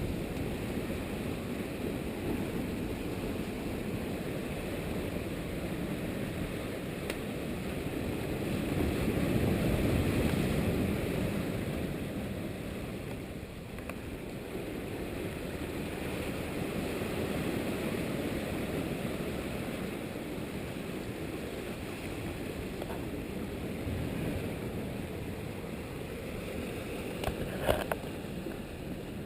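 Strong wind buffeting the camera microphone as a steady low rushing noise, swelling for a few seconds about a third of the way in. There is one brief tick near the end.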